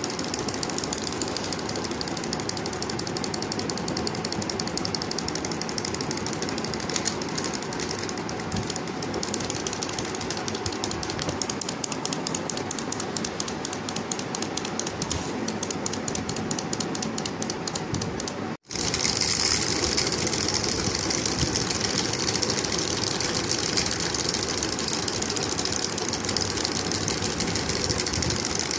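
Several clockwork wind-up chick toys hopping across a wooden table: a continuous, rapid clicking rattle of their spring-driven mechanisms and plastic feet. It breaks off for an instant about two-thirds of the way through, then carries on slightly louder.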